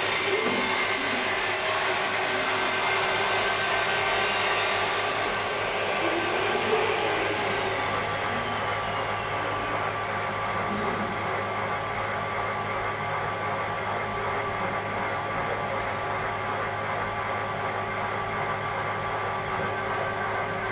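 CNC machine running: a loud hiss stops suddenly about five seconds in, and a faint high whine falls away after it. A steady machine hum with several fixed tones carries on underneath.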